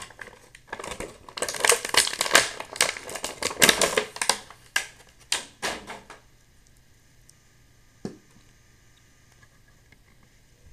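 Stiff plastic packaging crackling and clicking as an action figure is worked free of its packaging tray, a rapid run of sharp crackles lasting about five seconds, then one lone click a couple of seconds later.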